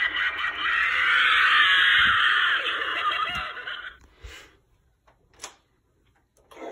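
Animatronic Halloween prop shrieking through a small, tinny speaker; the shriek stops about four seconds in. A couple of faint clicks follow as a door knob is turned, then near silence.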